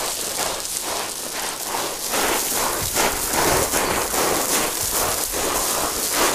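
Footsteps plunging down a steep slope of loose dry dirt and grass. Each step is a crunching, sliding scuff, about two a second, over a steady hiss.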